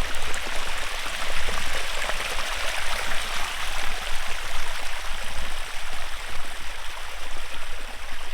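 Small shallow hill stream running beside the trail: a steady rush of flowing water.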